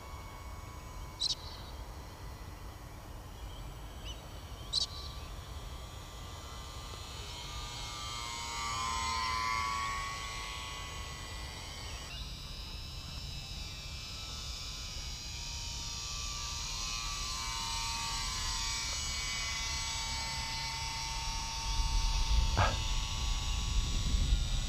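Small electric motor and propeller of a radio-controlled foam slow-flier whining as the plane flies, its pitch rising and falling as it passes and changes throttle. Wind buffets the microphone near the end.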